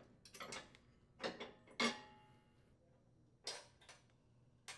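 Light metallic clicks and clinks of retaining pins and hairpin clips being worked free of the mower deck's support arms. There are several separate taps, and the loudest comes just under two seconds in, with a short metallic ring.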